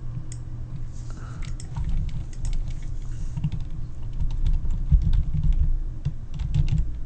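Irregular clicking and tapping of a computer keyboard and mouse close to the microphone, with dull low thumps from the desk that are strongest in the second half.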